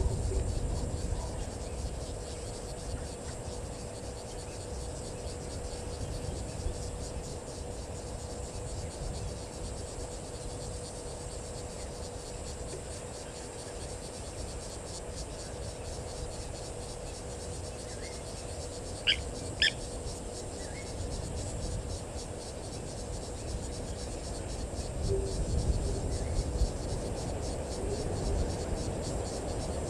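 Bushveld ambience: insects trilling steadily in a fast, even pulse, over a low rumble and a faint steady hum. Two short high bird calls come about two-thirds of the way through, and another comes near the end.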